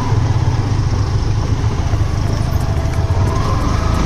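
Motorcycle engine running steadily, with a strong low rumble; a faint higher tone joins about three seconds in.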